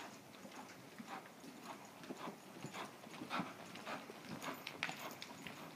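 A ridden horse's hoofbeats on soft arena dirt: a run of soft, irregular thuds, several a second.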